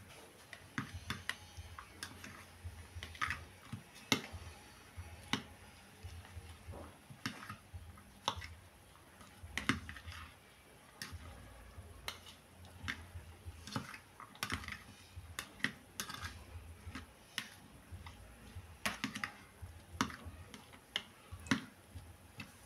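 Metal fork clinking and scraping against a bowl while tossing chopped tomatoes and red onion: irregular light clicks, a few a second.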